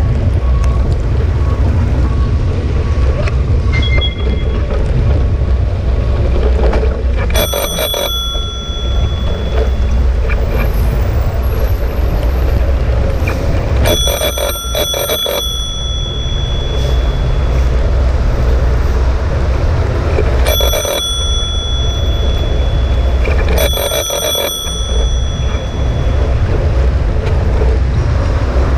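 Handlebar bicycle bell rung in four bursts of several quick dings each, a few seconds apart, warning pedestrians walking in the bike lane ahead. A steady low rumble of traffic and riding noise runs underneath.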